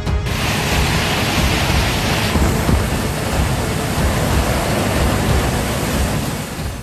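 Heavy rain driven by strong wind in a tropical rainstorm: a dense, steady rushing hiss, brighter for the first two seconds and fading near the end.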